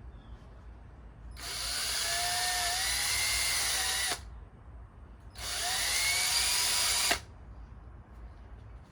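Small power tool spinning a fine wire wheel on faded black plastic, run twice: about three seconds, then about two, a high whine that wavers a little in pitch and stops sharply each time.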